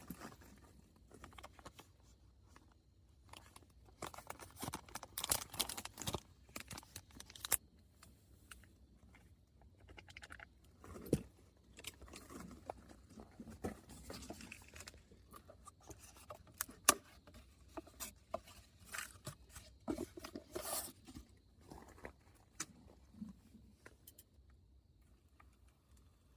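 Irregular rustling, light taps and clicks of things being handled, with no steady sound beneath them.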